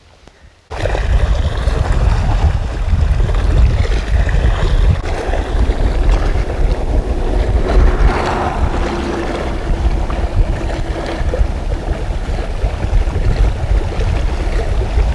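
Strong wind buffeting the microphone, a loud, deep rumbling roar that cuts in abruptly under a second in and carries on unbroken.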